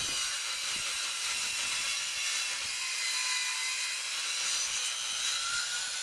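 A power saw mounted in a saw table running and cutting along a fir 2x4: a steady, unbroken hiss of the cut, with a faint whine that rises slightly near the end.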